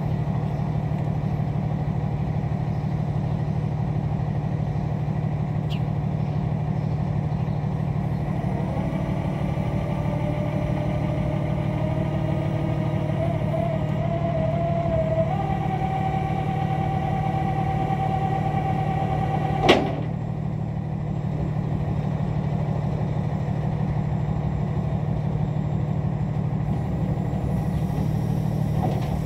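Rollback tow truck's engine idling steadily. A whine comes in about a third of the way through, climbs in pitch, then holds. It stops with one sharp clank about two-thirds of the way in.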